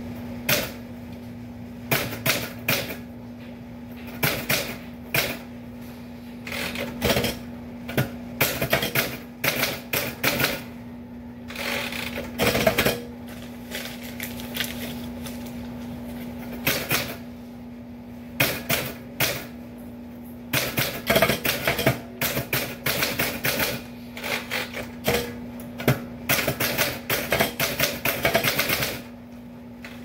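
Typewriter keys striking in quick, uneven clusters with short pauses between them, over a steady low hum. The slow, halting pace comes from copying a faded original that is hard to read.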